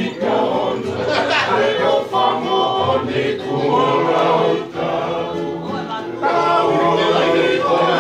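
Men's group singing a Tongan song together in harmony, in phrases with short breaks, accompanied by strummed acoustic guitar and ukulele.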